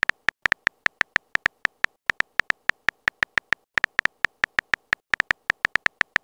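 Phone keyboard typing sound effect: a quick run of short key clicks, about six a second, with brief pauses between words.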